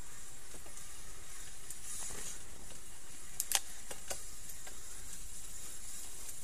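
Steady rumble of travel over a rutted, muddy dirt track, with a few sharp clicks or rattles. The loudest is a quick double click about three and a half seconds in.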